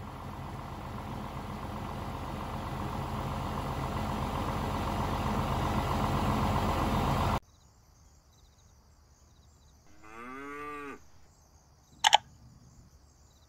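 A farm loader tractor's engine running and growing steadily louder as it approaches, cut off suddenly about seven seconds in. Then a single cow moo lasting about a second, followed by a sharp mouse-click sound effect.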